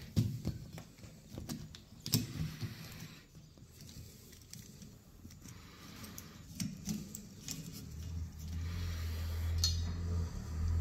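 Plastic clicks and light rattling of a Toyota RAV4 wiper blade and its clip being handled on the wiper arm, a handful of sharp clicks spread apart. A low steady hum comes in near the end.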